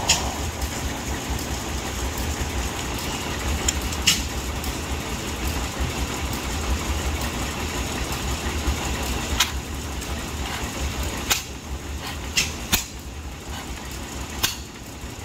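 Old Deutz stationary engine being turned over by hand at its flywheel to start it. Under a steady low rumble come about six sharp knocks at uneven gaps.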